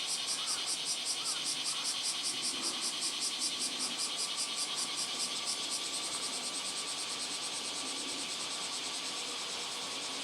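Railway level-crossing warning alarm ringing at an even beat, about three strikes every two seconds, under a fast, steady pulsing insect chirr. The strikes fade in the first few seconds, and a steady high tone holds through the second half.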